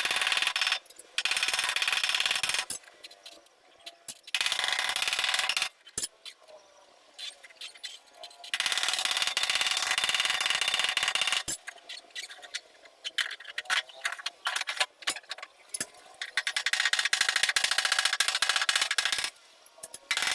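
Body-repair tool working in repeated bursts of rapid, machine-gun-like rattling, each burst one to three seconds long with short pauses between.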